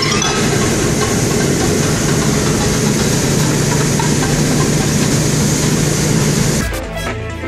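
A heavy engine running steadily and loudly, a steady low hum under a dense rush of noise. It stops abruptly about six and a half seconds in as music takes over.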